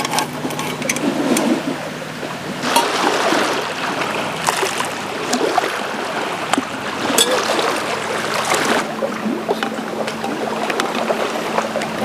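Hot coffee poured from a small metal camping pot into a titanium mug: a splashing trickle lasting several seconds. Lake waves lap in the background, and there are a few light metal clinks near the start.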